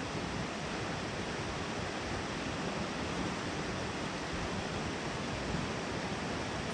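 Steady, even rush of a mountain headwater stream.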